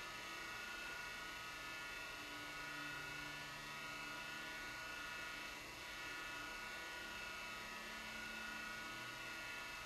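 Steady electrical or machine hum with several even, high whining tones over it and a low drone that comes and goes. There are no footsteps or knocks.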